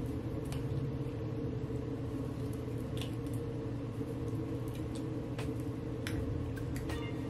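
Steady low hum in a small room, with a few faint soft clicks and squishes of a rat-tail comb parting gel-coated hair.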